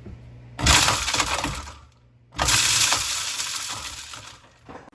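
Kitchen garbage disposal switched on twice, running in two short bursts of loud whirring noise, the first about a second long and the second about two seconds, each starting suddenly and fading out. It now runs freely after being unjammed from underneath with a hex key.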